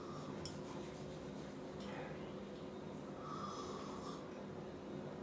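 Tea being slurped noisily from a small tasting cup, one airy intake lasting about a second, starting about three seconds in. Two light clicks come earlier.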